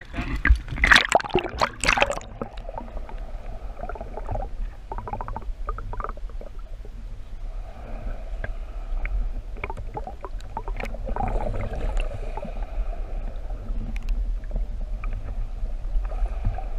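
Shallow, choppy sea water splashing and sloshing against a handheld camera at the surface, loudest in the first two seconds. After that it becomes a muffled underwater rumble with scattered sharp clicks and knocks.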